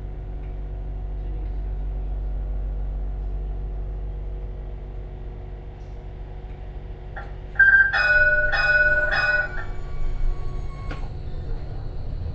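Bombardier Primove tram's warning gong rung about five times in quick succession, about two-thirds of the way in, over the steady low rumble of the tram running.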